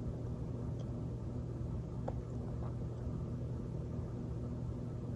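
Steady low hum over faint background hiss, with a single faint click about two seconds in; no sneeze.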